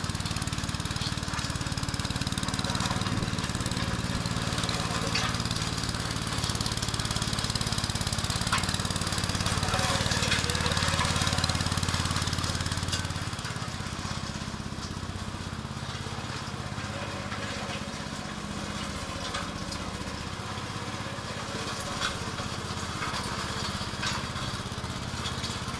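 Small engine of a homemade screw-drive vehicle running under load as the machine drives and turns, with scattered crackles over the drone. The engine is louder in the first half and drops quieter and lower about halfway through.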